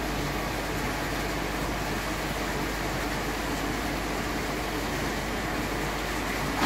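Steady hum and hiss of running aquarium filtration and pumps, with a short knock right at the end.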